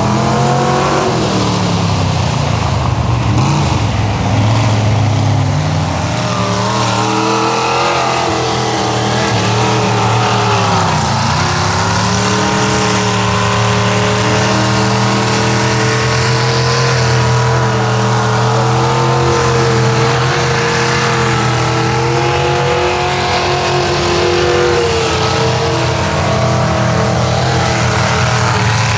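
Modified Dodge Ram mud truck's engine revving hard and held at high revs as its tyres spin in deep mud. The revs drop and climb back a few times, sharply about eleven seconds in, then hold high and fairly steady.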